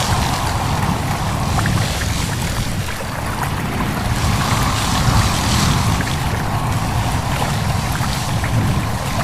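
A babbling stream mixed with wind rustling through leaves. The rustling rises and falls in gusts every few seconds over the stream's steady rush.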